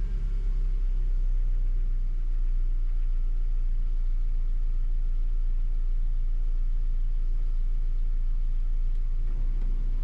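Car engine idling steadily, its accessory drive belt and pulleys freshly treated against squealing.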